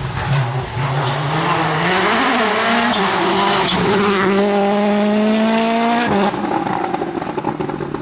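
Citroën C3 rally car's turbocharged four-cylinder engine at full throttle as the car passes: the revs rise and fall through the first few seconds, then climb steadily in one gear and cut off sharply about six seconds in as the driver lifts or shifts, leaving a rougher engine note as it pulls away.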